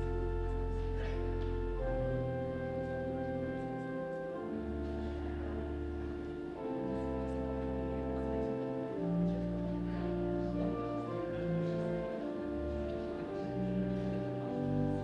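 Church organ playing slow, held chords over a deep bass line, the chords changing every second or two.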